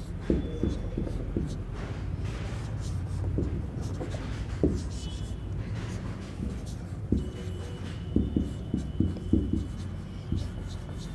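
Marker pen writing on a whiteboard: short strokes and taps in irregular groups, with a quick run of them about eight seconds in, over a steady low hum.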